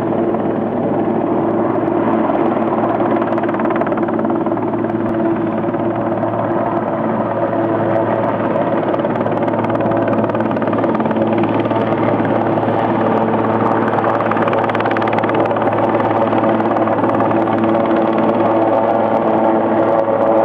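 Search helicopter in flight overhead: its engine and rotor make a steady drone with several held tones.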